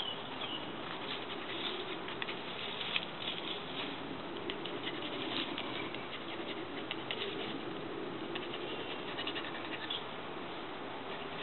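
A puppy moving about in long grass: scattered light rustling and ticking over a steady hiss.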